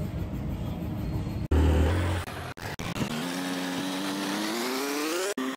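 Motorcycle engine and road rumble across several quick edits. From about three seconds in, the engine note climbs steadily as the bike accelerates, then cuts off suddenly at the end.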